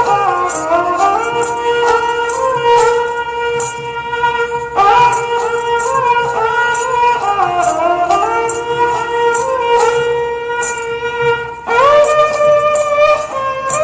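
Instrumental music: a reedy wind instrument plays a melody that slides between notes over a steady drone, with regular light percussion strikes.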